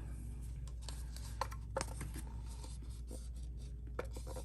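Light scraping and scattered small clicks as the last of the epoxy resin is scraped from a mixing cup into a silicone mold, over a steady low hum.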